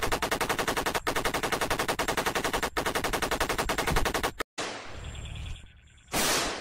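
Machine-gun sound effect: a long, rapid burst of evenly spaced automatic fire with two brief breaks, cutting off about four and a half seconds in. A rushing noise follows and swells loudly near the end.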